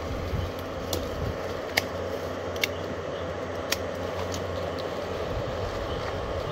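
A few short, sharp snips of hand pruning shears cutting thin twigs, spaced about a second apart, over a steady low hum.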